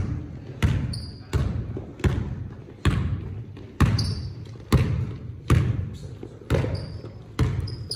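A basketball being dribbled on a hardwood gym floor, a steady bounce a little faster than once a second, each bounce echoing in the hall.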